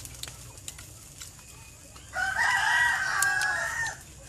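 A rooster crowing once, a single call of nearly two seconds starting about halfway through.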